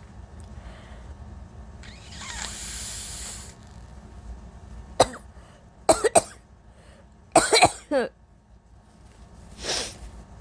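A woman coughing from allergies: a long noisy breath in, then a string of short coughs, several in quick clusters midway, and a softer breathy one near the end.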